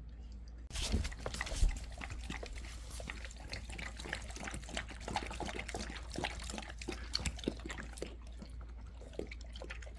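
A cat lapping water from an electric pet drinking fountain: rapid, irregular wet licks over the running water. It starts suddenly about a second in.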